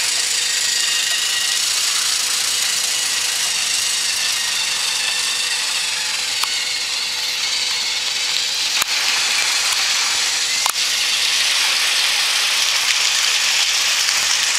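Small electric motors of battery-powered toy trains whirring steadily as the engines run along the track, with a few sharp clicks in the second half.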